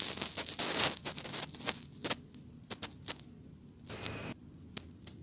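Faint rustling and crackle, thinning about two seconds in to scattered light clicks: handling noise from a phone being carried around.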